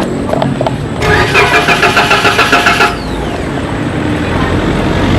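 Street traffic with vehicle engines running. About a second in, a rapidly pulsing, high-pitched mechanical whine sounds for about two seconds, and an engine rumble grows louder near the end.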